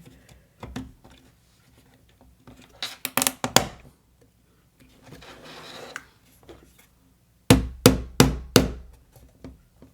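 Small wooden model-kit pieces being fitted together: a quick clatter of clicks about three seconds in, a soft rubbing, then four sharp knocks near the end as a piece is tapped into place.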